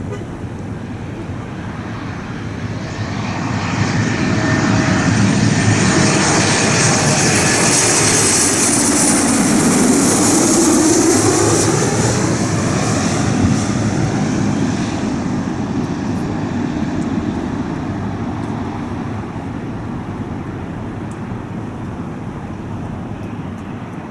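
Jet airliner's engines passing close by: the noise swells over a few seconds, peaks with a loud hiss and a whine that falls in pitch as the plane goes past, then fades away.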